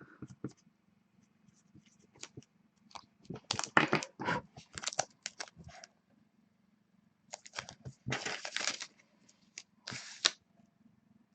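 Crinkling and tearing of plastic trading-card packaging as cards are unwrapped and handled, in two rustling spells, the second starting about seven seconds in.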